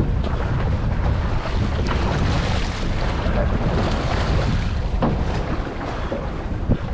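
Strong wind buffeting the microphone on a boat at sea: a steady rush of wind and water noise with a heavy low rumble, and a few faint knocks.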